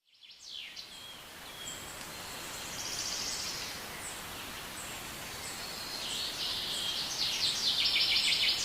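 Birds singing over steady outdoor background noise: quick descending whistles near the start, a trill about three seconds in, and a fast run of repeated notes over the last few seconds, with short high chirps recurring throughout.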